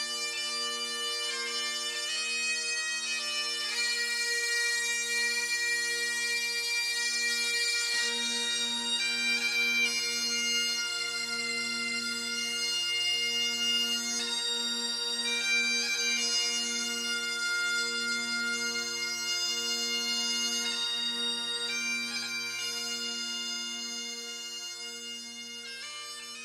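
Bagpipes playing a slow melody over steady drones, fading out near the end.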